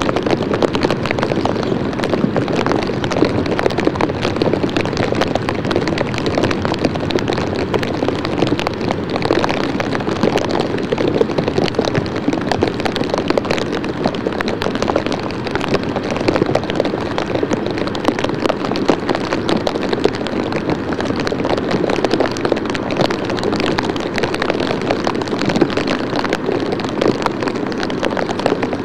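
Steady, dense crackling hiss with no distinct sounds standing out of it.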